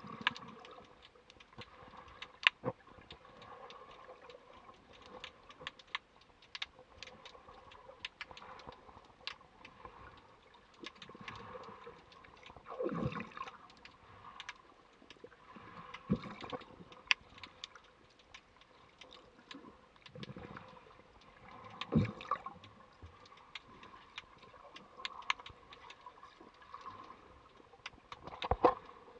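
Underwater sound picked up by a submerged camera: a scattered run of sharp clicks and crackles over a muffled water background, with several louder swishes of moving water.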